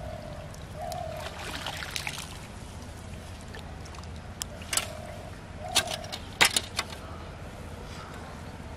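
Water pouring and dripping out of a hoop lift net as it is raised from a pond, followed by a few sharp knocks and clicks about five to seven seconds in as the net comes down onto the grass bank.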